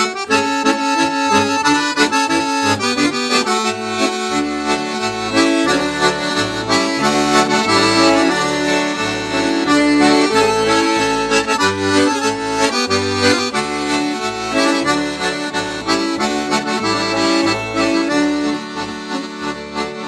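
Instrumental introduction to a Romanian Christian song: a melody in long held notes over a bass line that changes note about every half second, with no singing yet.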